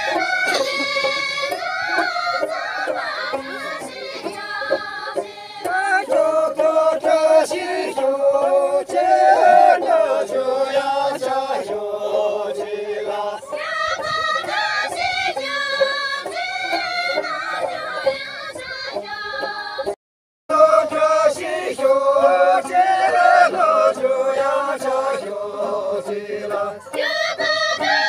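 A group of voices singing a folk dance song together. The sound cuts out for a moment about two-thirds of the way through, then the singing picks up again.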